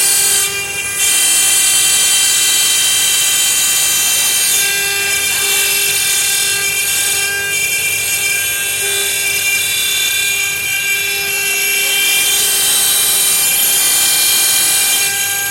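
CNC stone-carving machine running: its spindle gives a steady high whine over the hiss of the bit cutting stone. The sound dips briefly about half a second in.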